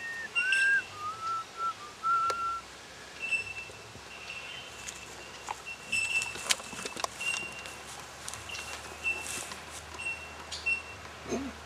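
A person whistling a few long, steady notes that step down in pitch, stopping about two and a half seconds in. After that a bird repeats a short high call about once a second, with a few scattered clicks.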